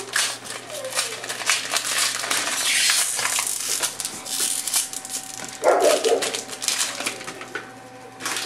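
Foil trading-card pack wrapper crinkling and tearing as it is opened and the cards are pulled out, a dense crackle for about the first five seconds. A short voice-like sound comes about six seconds in.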